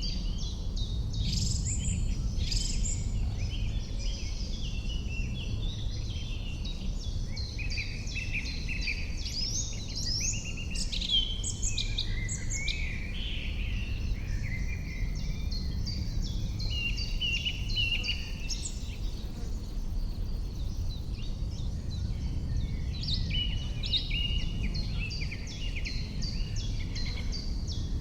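Dawn-chorus-like mix of several songbirds singing and calling at once, many short overlapping chirps and trills, over a steady low rumble.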